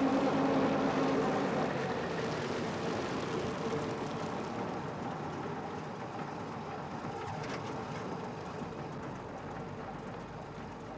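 Old single-decker bus engine running: a steady engine hum at first, then a rumbling noise that grows gradually fainter.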